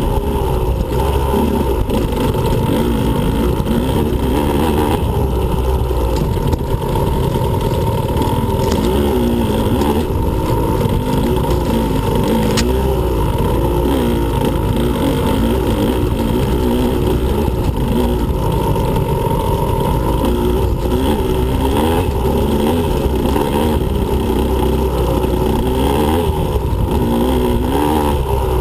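Two-stroke engine of a Husqvarna TE125 dirt bike running hard, its revs rising and falling over and over as the throttle is worked and the gears change.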